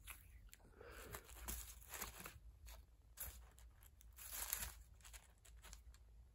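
Faint crinkling and rustling from something being handled, in several short spells with small ticks between them, the loudest a little past the middle.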